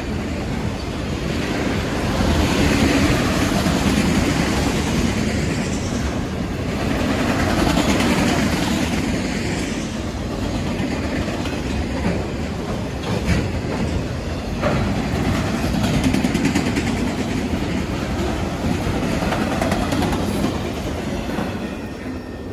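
A train rolling past at close range, its wheels clicking over the rail joints. The rumble swells and eases every few seconds, and there are a few sharp clacks about two-thirds of the way through before it starts to fade near the end.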